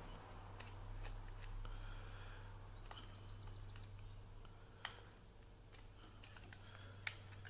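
Faint, scattered clicks and light taps of small parts being handled as an SSD is screwed into a laptop hard-drive caddy, over a low steady hum. The two sharpest clicks come just before halfway and near the end.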